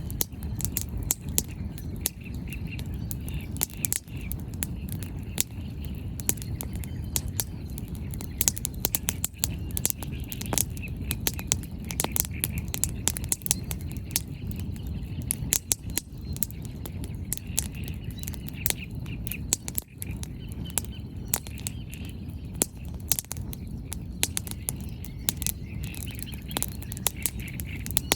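Wood bonfire burning, the firewood crackling and popping in frequent sharp snaps over a steady low rumble.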